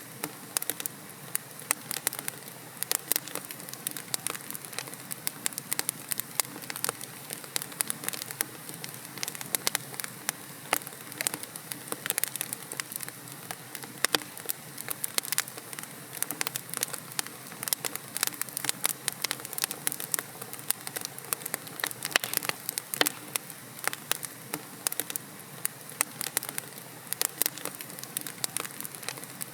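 Wood fire in a fireplace, burning logs crackling and popping with many sharp, irregular snaps over a steady hiss.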